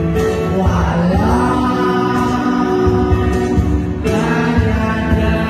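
A man singing a slow song over musical accompaniment, with long held sung phrases that start about a second in and again about four seconds in.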